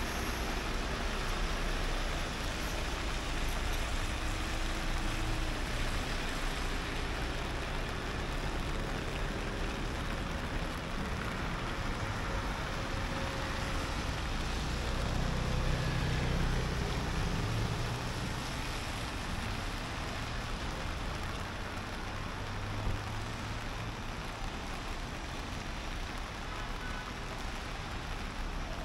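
Street traffic: vehicles passing with a low engine hum over a steady hiss, the hum loudest about halfway through.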